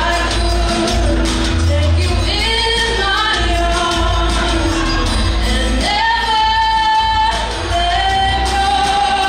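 A young woman singing into a handheld microphone over instrumental music with a steady bass, holding two long notes in the second half.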